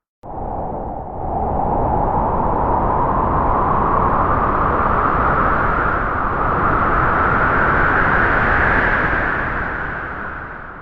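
Halloween ghoul sound effect: a rushing, wind-like ghostly howl that swells in about a second, slowly rises in pitch, then fades out near the end.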